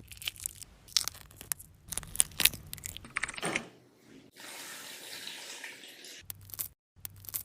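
Sharp clicks and knocks of food and utensils being handled, then water running from a tap for about two seconds, as when rinsing at a sink, then a few more clicks near the end.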